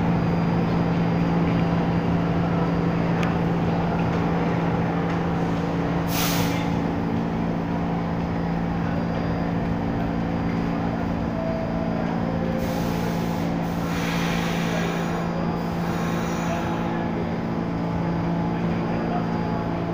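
New York City Subway A train standing in the station, its equipment giving a steady hum. Short hisses come about six seconds in and again between about thirteen and sixteen seconds.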